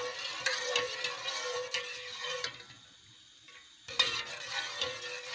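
Metal spoon stirring thick tomato ketchup in a metal pot while cornflour is mixed in to thicken it, scraping and tapping against the pot in a repeated clicking rhythm. The sound drops out briefly about halfway, then comes back with a sharp knock and more stirring.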